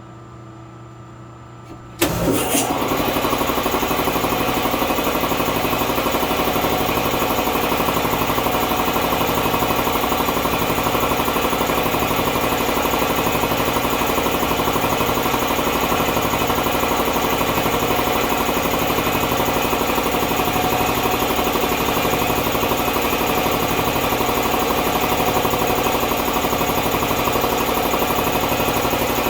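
Champion air compressor, run on three-phase power from a phase converter, starting up suddenly about two seconds in and then running steadily and loudly, with a slow, even throb underneath.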